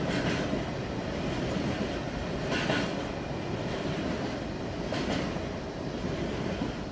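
Freight train rolling past: a steady rumble of wagons on the rails, with a brief hissing clack about every two and a half seconds.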